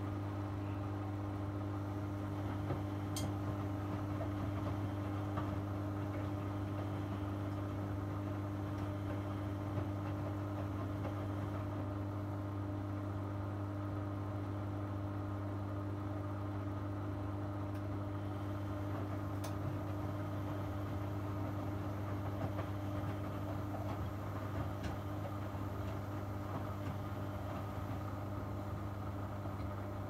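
Miele W2241 front-loading washing machine running partway through a 75 °C wash cycle, a steady even hum with a couple of faint clicks.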